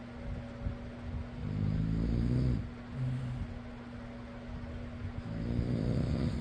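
A person snoring, two rough snores about four seconds apart (about a second and a half in, and again near the end), over the steady hum and whir of an electric fan.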